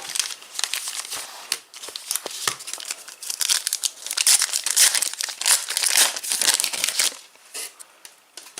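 A plastic trading-card pack wrapper being torn open and crinkled in the hands, a dense crackling that is loudest in the second half and dies away about a second before the end.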